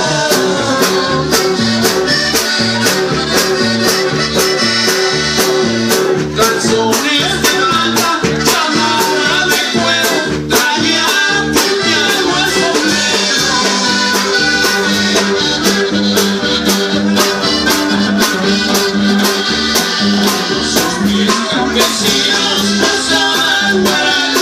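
Live band playing Latin American dance music: accordion, guitar and electric bass over a steady drum beat.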